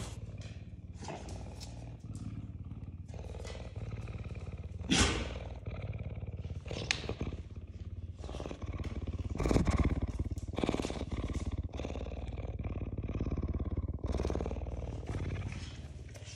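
Cougar purring: a continuous low, tractor-like rumble, with a few louder noises about five and ten seconds in, fading near the end.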